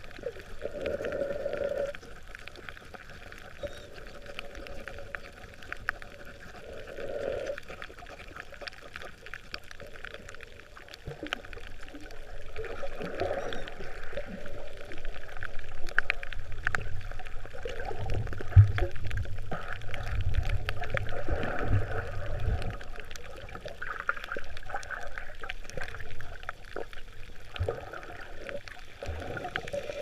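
Underwater sound picked up by a submerged camera: muffled water sloshing and gurgling with scattered faint clicks. About halfway through a louder low rumble sets in for several seconds as a snorkeler kicks close to the camera.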